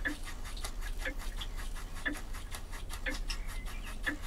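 Retrol model steam beam engine running on steam: a rapid, regular ticking from its moving parts, with a stronger beat recurring a little under once a second. It is still warming up, spattering condensate and steam from the exhaust.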